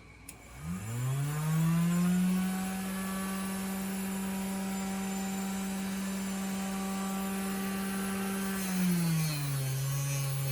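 Small bench grinder fitted with a fiber wheel switched on with a click, its motor spinning up in a rising whine to a steady hum. About nine seconds in the pitch drops to a lower steady hum.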